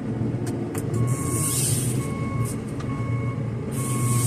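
JCB telehandler's diesel engine running, heard from inside the cab, with its reversing alarm starting about a second in and beeping about once a second as the machine backs up. Two short hisses are heard along with the beeps.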